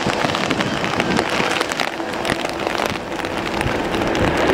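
Heavy rain drumming on an umbrella held over the microphone, a dense patter of drops. Under it runs a low hum from the landing Ryanair Boeing 737's jet engines, growing louder near the end.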